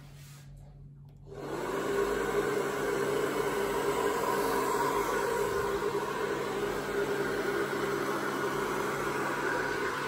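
Handheld hair dryer switching on about a second in, then running steadily: a rush of air over a constant motor hum, blowing across wet poured acrylic paint.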